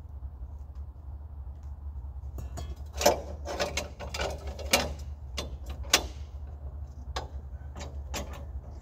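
A series of sharp clicks and knocks as the log and its clamps are worked on the sawmill bed, irregular, the loudest about three, five and six seconds in, over a steady low hum.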